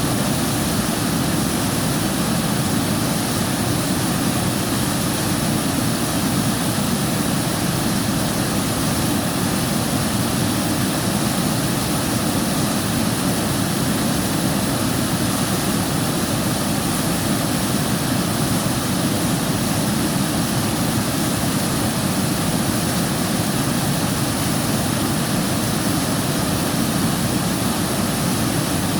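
River water flowing, a steady rushing noise that keeps an even level throughout.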